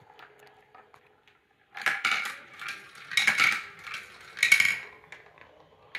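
Plastic marbles clattering and rattling through a VTech Marble Rush plastic marble run as they swirl around a funnel and roll along the tracks. The clicking comes in three loud bunches, about a second apart, starting a couple of seconds in.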